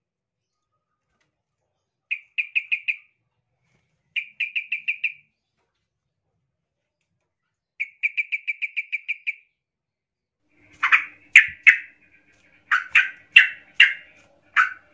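Caged yellow-vented bulbuls (trucukan) calling in an agitated, fired-up state, as if challenging a rival. First come three short bursts of rapid chattering notes, a couple of seconds apart. From about eleven seconds on there is a run of louder, harsher single calls, about two a second.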